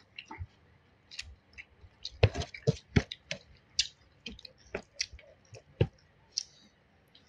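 Eating sounds: chewing and mouth smacks with irregular sharp clicks, loudest in a cluster about two to three seconds in and once near six seconds.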